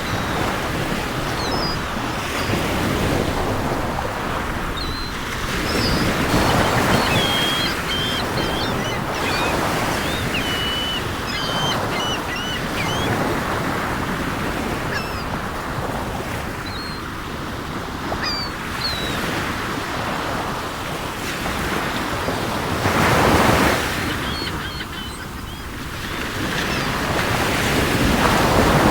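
Sea waves washing in repeated surges, with louder breakers about six seconds in, about twenty-three seconds in and near the end. Seagulls give short high cries over the surf, many through the first half and a few later.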